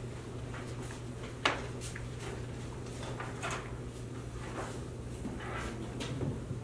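Quiet meeting-room handling noises: a steady low hum with soft rustles and light clicks, and one sharp knock about a second and a half in.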